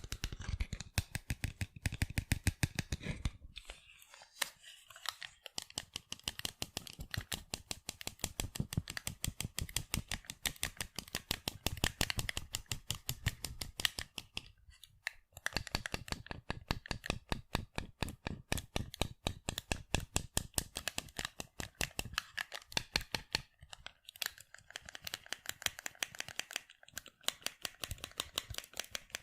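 Fingers tapping rapidly on sunglasses: quick, crisp clicks in fast runs, broken by brief pauses a few times.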